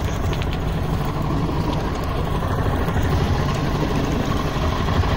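Twin outboard motors idling with a steady low drone.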